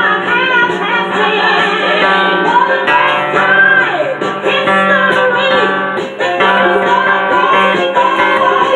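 A man singing over a strummed steel-string acoustic guitar, his voice sliding up and down in pitch.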